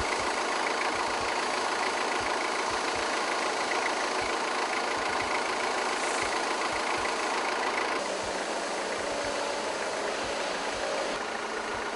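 Engine of a Tailift Z-Series internal-combustion counterbalance forklift running steadily, a little quieter from about eight seconds in.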